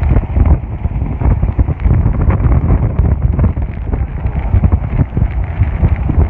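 Strong wind buffeting the camera microphone: a loud, gusty low rumble with scattered crackles.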